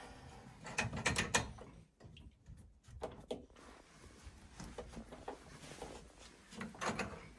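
Clicks and light knocks of hands working a central heating circulator pump loose from its brass pipe unions, the pump body shifting against the fittings as the union nut is turned. A cluster of sharp clicks comes about a second in, with scattered knocks around three seconds and near the end.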